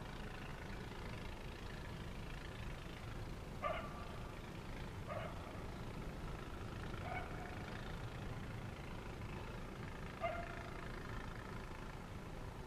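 Steady low rumble of blizzard wind, with four short pitched animal calls spaced a few seconds apart.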